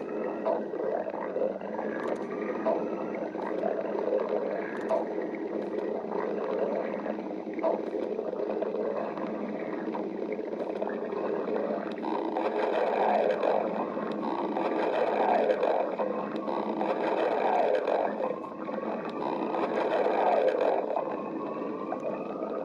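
Stomach growling: a continuous gurgling and rumbling from the gut that swells louder in long stretches from about halfway through, with a drawn-out rising whine near the end.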